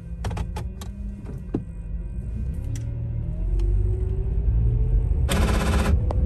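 A car pulling away from a standstill: a low engine rumble that builds while the engine note rises in pitch as it accelerates. A few sharp clicks in the first second, and a brief loud rattle about five seconds in.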